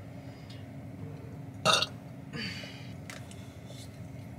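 A single short burp about a second and a half in, followed by a soft breath out.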